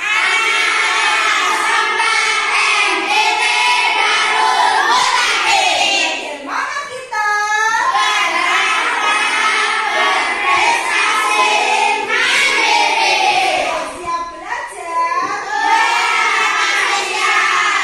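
A class of primary-school children singing together in unison, unaccompanied, with short breaks between lines.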